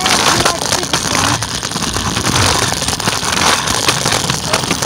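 Scooter ride noise: wind buffeting the microphone over the sound of the scooter rolling on pavement, loud and steady.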